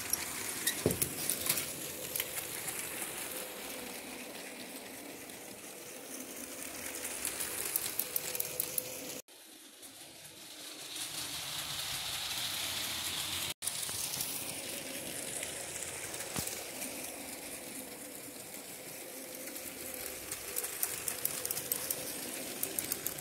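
Battery-powered Lego trains running on plastic Lego track: a steady electric motor whine with fine, quick clicking of the wheels over the track joints. The sound breaks off abruptly twice, about nine and thirteen and a half seconds in.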